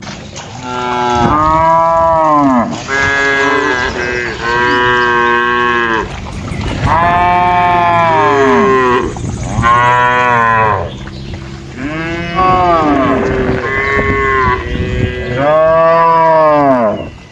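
Cattle mooing: about seven long calls one after another, each rising then falling in pitch, with calls from more than one animal overlapping.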